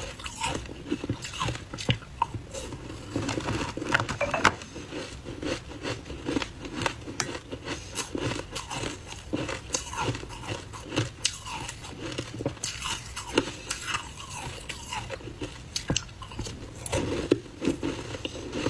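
Frozen ice balls dusted with matcha powder being bitten and chewed: a steady run of sharp, irregular crunches and cracks of ice breaking between the teeth.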